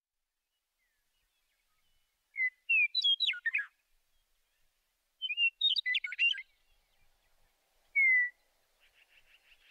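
A songbird singing: two short warbled phrases a couple of seconds apart, then a single clear whistle that falls in pitch, and a faint rapid trill near the end.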